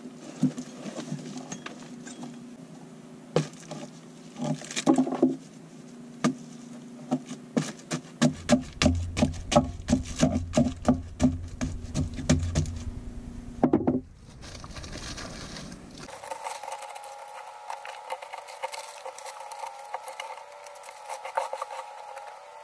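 Rotted, waterlogged plywood being pried and broken out of a boat's cabin floor with a hand tool: irregular cracks, crunches and knocks, coming thick and fast in the middle, over a steady hum.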